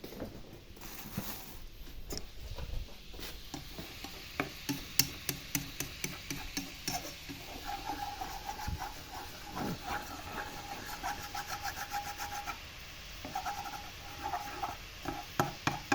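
Cooking sounds: a utensil clinking, tapping and scraping against a pan, with a run of quick clicks a few seconds in. A faint steady tone runs through the middle.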